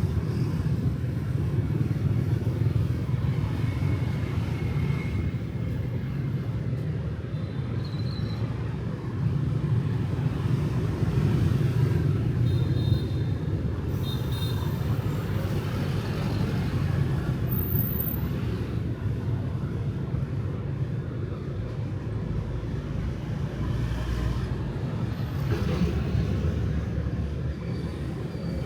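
Light street traffic of motorbikes and cars, running as a steady low rumble with a few faint short high tones.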